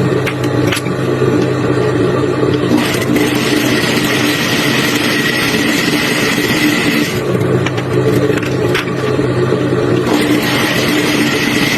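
Hair-factory machinery running with a steady hum and a few constant tones. A higher hiss joins for several seconds at a time, and there are a few sharp clicks.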